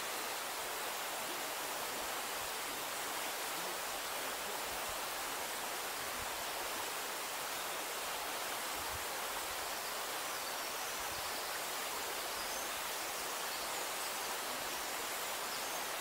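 Steady, even forest ambience: a constant soft hiss with no wind gusts or other events, and a few faint high chirps in the second half.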